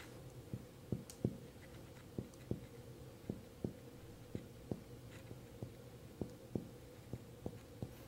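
Abdominal percussion: a finger striking a finger laid flat on the bare upper abdomen, giving a series of soft, low taps, about two a second and some in quick pairs.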